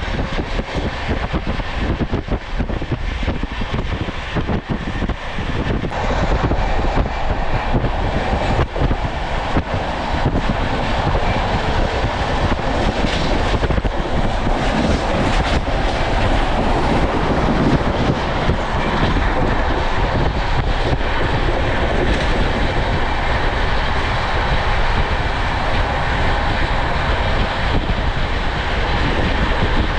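Passenger train running at speed, heard at an open coach window: the rush of wheels on rail and air. It is choppier with quick clatter in the first few seconds, then settles into a fuller, steady rush.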